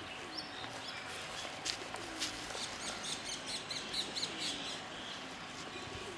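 Small birds chirping: many short, high calls, some in quick runs, over a light steady background noise, with a couple of sharp clicks.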